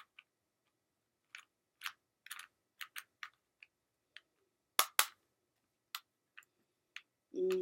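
Plastic Rubik's Cube being twisted by hand, its layers snapping into place in a string of sharp, irregular clicks, the loudest two about five seconds in.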